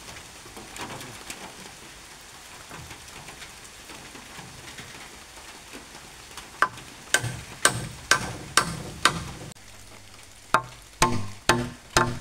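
Claw hammer driving a candle-wax-coated nail into a hardwood log. A run of sharp, ringing blows about two a second starts a little past halfway, pauses briefly, then comes faster near the end. Before the blows there is only faint rustling and handling noise.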